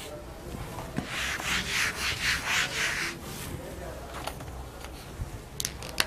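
Whiteboard eraser rubbing back and forth across the board in quick strokes, about four a second, for roughly two seconds, wiping off writing. Two sharp clicks come near the end, the second the loudest.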